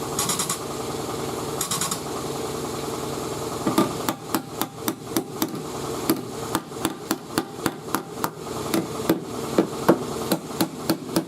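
Hammer blows on the steel quarter panel of a car, about three a second, knocking down a high spot while the panel is pulled on a frame machine. The hammering starts about four seconds in, over a steady machine noise.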